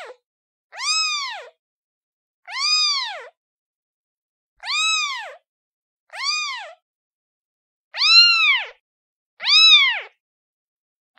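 Kitten meowing six times, each a high call that rises and then falls in pitch, with complete silence between the calls.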